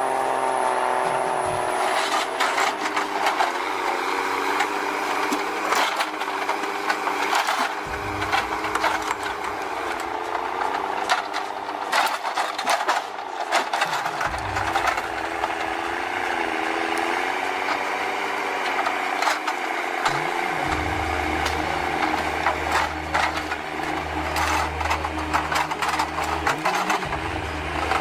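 Loaded forestry forwarder driving on tracked bogies: the engine runs steadily under constant clanking and rattling from the metal tracks.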